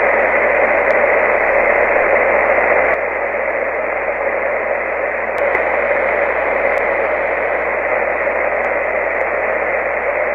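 Shortwave radio static: steady hiss from an HF single-sideband receiver tuned to 11175 kHz with no station transmitting, heard through a narrow voice-bandwidth audio filter. It drops slightly in level about three seconds in.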